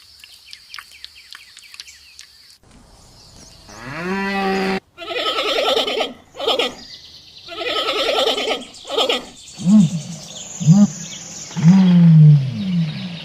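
Animal calls: faint chirping at first, then a rising cry about three seconds in, followed by several loud harsh calls and a few short falling cries near the end.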